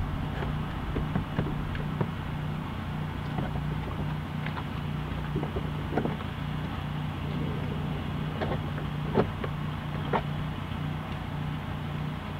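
Scattered light clicks and knocks from hands working the plastic trim and clips of a 2008 Honda Odyssey's sliding door, the sharpest about nine seconds in, over a steady low hum.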